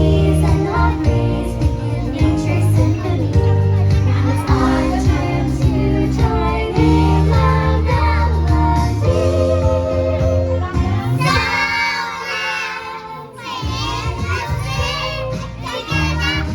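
A group of young children singing along to a recorded backing track with a steady bass line. For a couple of seconds about two-thirds of the way through the bass drops out and only the high voices carry on.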